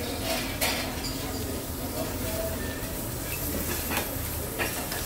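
Food sizzling on a hibachi griddle, a steady hiss over a low rumble, with a few sharp clinks about half a second in and again near the end.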